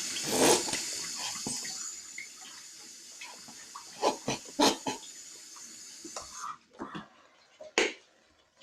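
Water running from a tap in a steady hiss that stops suddenly about six and a half seconds in. Several sharp knocks and clatters of things being handled are mixed in, the loudest near the start and just before the end.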